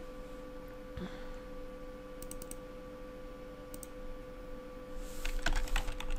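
Computer keyboard typing: a quick run of keystrokes starts about five seconds in. Before it, only a few faint isolated clicks over a steady low hum.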